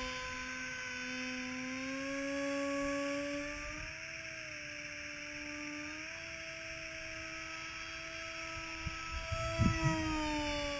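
Whine of a small electric RC plane's brushless outrunner motor driving a 6x4 propeller in flight, a steady pitched drone whose pitch steps up slightly a couple of times and dips a little near the end as the throttle and distance change. A few low bumps come near the end.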